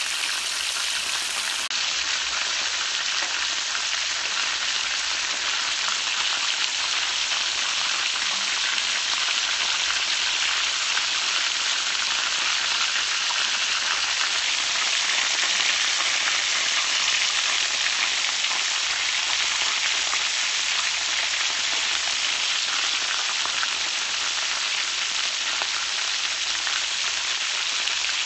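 Buttermilk-marinated, breaded chicken pieces deep-frying in hot oil in a skillet: a loud, steady sizzle of bubbling oil.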